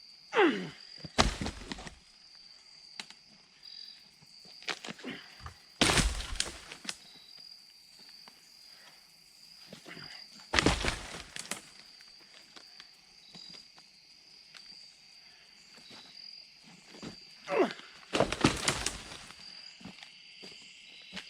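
Pieces of cut wood being tossed onto a pile, landing with about four heavy crashes a few seconds apart, over a steady high insect trill.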